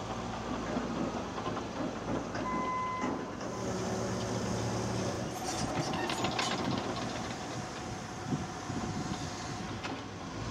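Caterpillar D6N LGP crawler dozer working on a dirt mound: its diesel engine running under load with the steel tracks clanking and rattling. A short beep sounds about two and a half seconds in, and a cluster of sharp metallic clanks comes about six seconds in.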